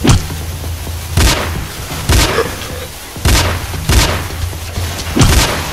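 Dramatic film score: a steady low bass with six heavy, sharp hits, roughly a second apart.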